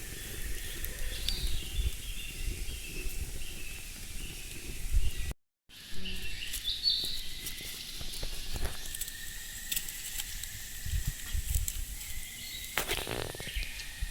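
Outdoor rural ambience: small birds chirping over a gusty low rumble of wind on the microphone, with scattered light clicks. The sound cuts out briefly a little over five seconds in, and a steady high tone runs after it.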